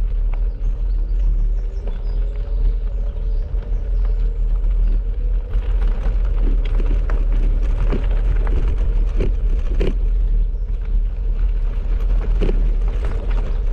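Bicycle ridden over a gravel track: a heavy, steady wind rumble on the microphone, with the tyres crunching on gravel. Sharp rattles and knocks come as the bike jolts over stones, several of them in the second half.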